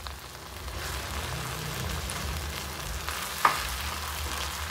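Chilli sauce with capsicum and other vegetables sizzling in a pan as it is stirred, with one sharp clink of a utensil against the pan about three and a half seconds in.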